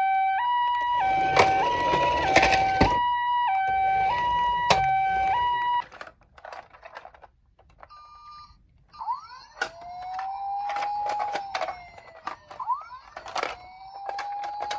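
Toy ambulance's electronic two-tone hi-lo siren, switching pitch about every half-second over clicks and clatter from the toy; it cuts off about six seconds in. After a short pause with scattered clicks, a toy siren wails up and down twice.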